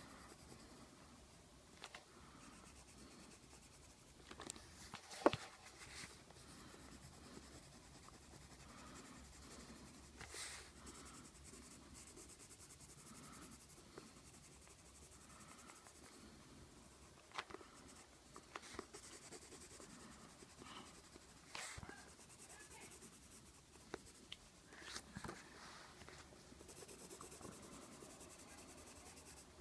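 Colored pencil scratching faintly on paper as a drawing is colored in, with a few light knocks scattered through, the loudest about five seconds in.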